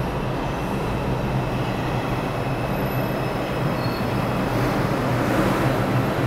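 R142 subway train pulling into an underground station: steel wheels rumbling on the rails with a steady low hum and thin high wheel squeals, growing a little louder as the cars draw alongside.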